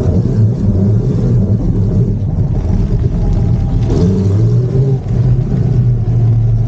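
E-bikes riding over dirt: a steady low rumble of tyres and motion on loose ground, evening out about four seconds in.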